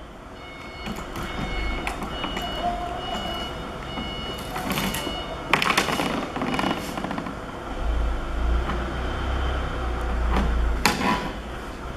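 Knocks and clatter of a folding boat's oars and fittings being handled and fitted, with sharper knocks about five and a half seconds in and again near the end, over a low rumble and a few brief high steady tones.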